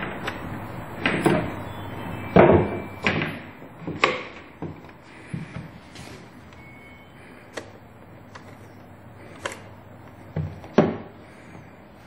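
The hard plastic parts of a tabletop LED humidifier knock and click as it is taken apart and handled on a table. A run of sharp knocks comes in the first few seconds, then sparser clicks, and one loud knock near the end.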